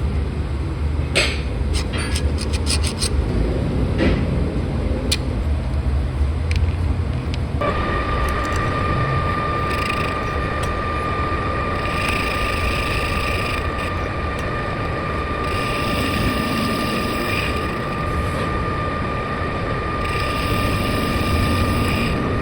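Metal lathe running steadily while turning a steel rod, with a low machine hum and a few light clinks in the first few seconds. About a third of the way in, a steady high-pitched whine starts suddenly and holds.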